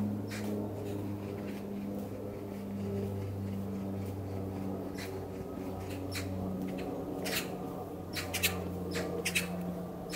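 Footsteps crunching and squeaking in snow at a walking pace, over a steady low hum.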